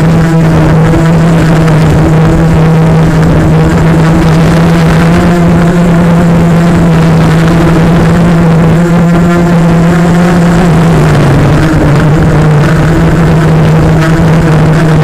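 Bolt 250 FPV quadcopter's brushless motors and propellers buzzing steadily in flight at one held pitch, wavering briefly about three-quarters of the way through, over a low rumble.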